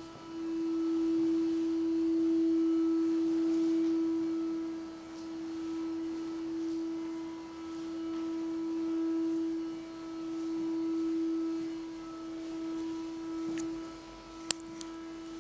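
A steady humming tone at one pitch, swelling and fading slowly every few seconds, with a sharp click near the end.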